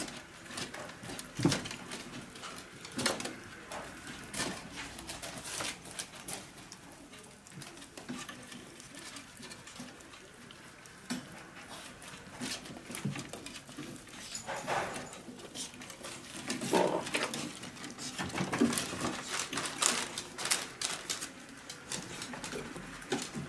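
Miniature pinscher puppies tearing at and chewing a whole dead rat: irregular clicks and crunches, with a puppy squeaking now and then, louder in clusters from about 14 seconds in.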